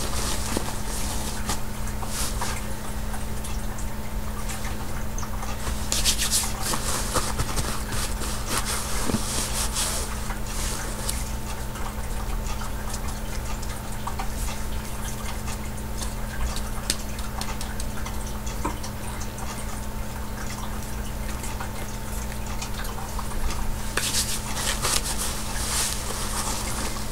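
Handling noise from a diaper change: disposable diaper and wipes rustling and crinkling, with louder bursts of crinkling about six seconds in, around nine seconds and near the end, and many small taps, over a steady low hum.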